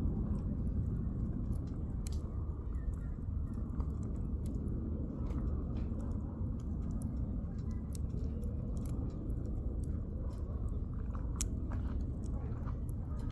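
Firewood burning in a campfire, popping and crackling in sharp, irregular snaps over a low steady rumble.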